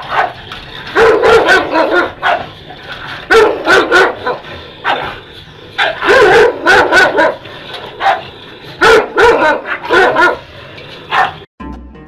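An American Staffordshire Terrier and a Sarplaninac barking hard at each other, in quick clusters of two to four barks every second or two, stopping abruptly near the end.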